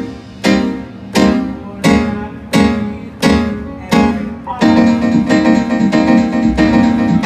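Guitar strumming chords at a sound check: single sharp chord strokes about every 0.7 seconds, then steady continuous strumming from about four and a half seconds in.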